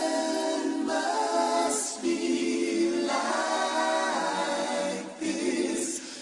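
Music: unaccompanied a cappella singing, with voices holding long sustained notes and no instruments or beat.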